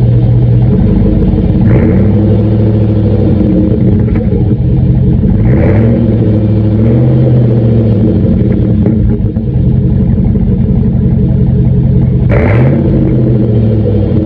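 Exhaust of a 2009 GMC Sierra's 4.8-litre V8 through a Flowmaster Outlaw muffler, idling with a deep, throaty rumble. It is revved briefly three times, about two, five and twelve seconds in.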